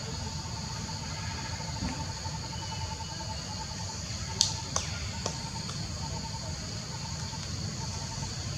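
Forest ambience: a steady high-pitched insect chorus with a fast, even trill running through it, over a low rumble. About halfway through come three sharp clicks in quick succession.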